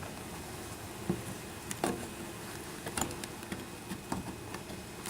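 Steady hum of a package of honeybees, broken by several sharp clicks and scrapes of a hive tool prying at the wooden bee package.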